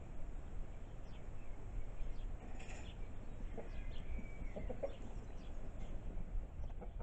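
Hens clucking now and then, with a few short low clucks close together about four to five seconds in, over a steady low rumble.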